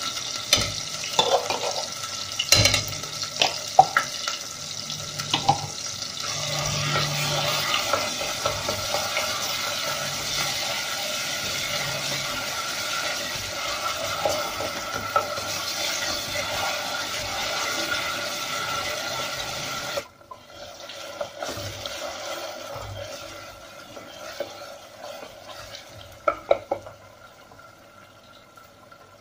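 Food frying in hot oil in a pan, a steady sizzle with clinks of a utensil stirring. The sizzle cuts off suddenly about two-thirds of the way through, leaving a fainter hiss and a few clinks.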